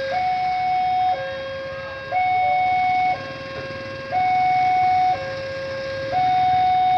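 Railway level-crossing warning alarm sounding: an electronic two-tone signal that alternates between a higher and a lower steady tone, switching about once a second, with the higher tone louder. It warns road users that a train is approaching.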